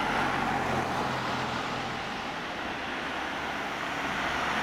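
Steady rumble and hiss of distant road traffic, with a faint low hum.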